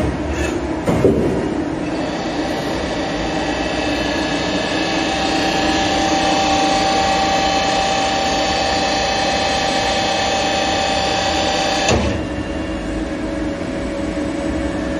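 SYIL L3 CNC turning center running, with a steady machine whine made of several held tones. A knock sounds about a second in. Another knock comes about twelve seconds in, where the whine cuts off abruptly and gives way to a lower, steadier hum.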